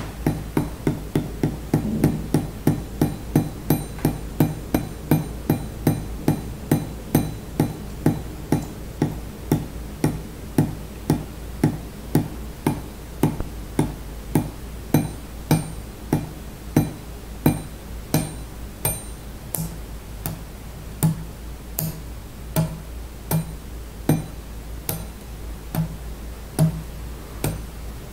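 Water dripping onto metal in a steady run of drops, each one a short ringing ping, about two to three a second, over a steady low hum.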